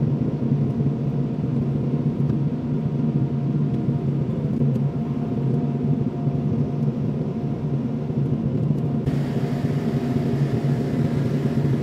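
Kobelco SK75SR excavator's diesel engine running steadily: a low drone with a faint steady whine above it, and a brighter hiss that comes in abruptly about nine seconds in.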